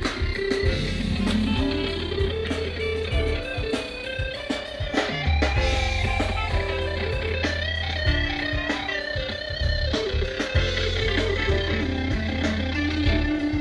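Live rock band playing an instrumental passage: a guitar line moving over held bass notes and a steady drum beat.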